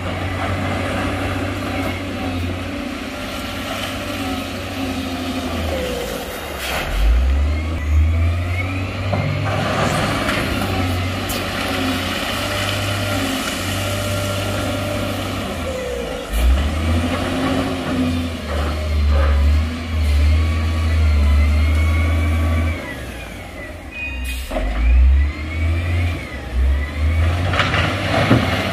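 Heavy truck's diesel engine running and revving up and down repeatedly, its deep note swelling and easing off, with a few short sharp knocks.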